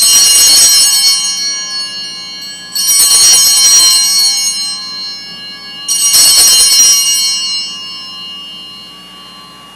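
Altar bells (Sanctus bells) rung three times, about three seconds apart, each ring a bright shimmer of many high tones that rings on and fades. They mark the elevation of the chalice at the consecration of the Mass.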